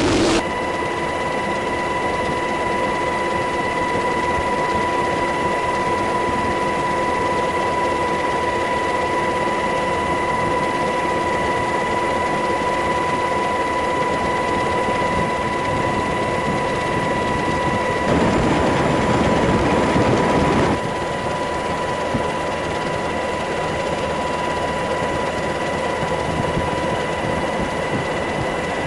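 Steady machine whine holding two pitches, one an octave above the other, over a constant rushing noise. A louder rush of noise swells in for about three seconds past the middle, then drops back.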